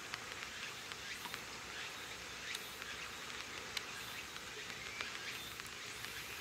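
Insects chirring in a steady high hiss, with several short, higher-pitched surges and a few faint clicks.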